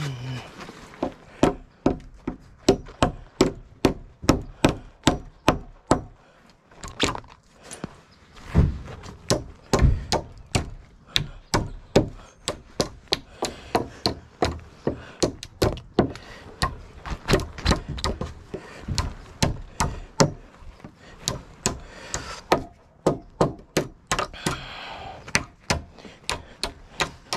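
Hammer striking wood in a steady run of sharp blows, about two a second, with short pauses about six seconds in and again about three quarters of the way through.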